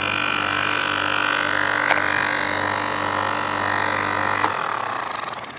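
Titan small bench grinder fitted with a sanding drum, running without load: a steady motor hum and whine, with one sharp tap about two seconds in. About four and a half seconds in it is switched off and winds down, its pitch falling as it fades.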